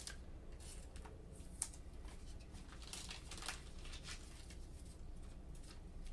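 Trading cards being slid into soft plastic sleeves and handled: faint, scattered plastic rustles and card slides, with a small tap about a second and a half in.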